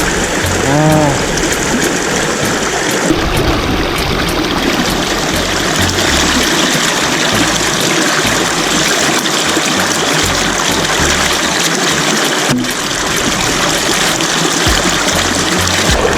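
Mountain creek water running over rocks: a steady, even rush and trickle.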